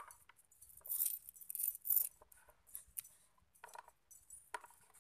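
A dog's metal chain clinking and rattling in short, scattered bursts as the dog moves about, loudest about one and two seconds in.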